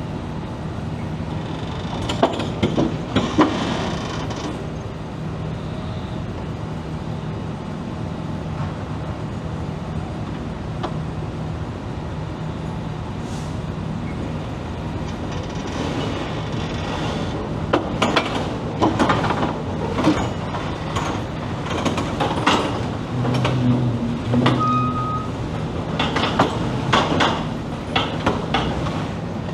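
Heavy equipment engine running with a steady low drone while the drilling rig is slid across its mat. Sharp metal knocks, clanks and creaks come in a cluster a couple of seconds in, then again repeatedly through the second half.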